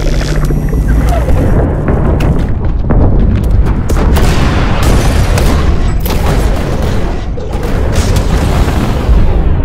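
Cartoon battle sound effects: a dense run of booms and crashing impacts over a heavy, continuous low rumble.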